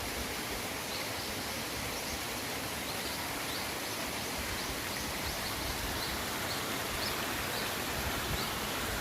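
Mountain stream running steadily, a constant rush of water. Short high chirps repeat every half second or so over it.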